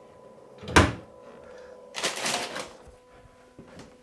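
A sharp knock about a second in, like a cabinet door or the plug going home. A second later comes a short hiss with a few faint clicks: the startup noises of a BioBidet Discovery DLS bidet seat as it first gets power.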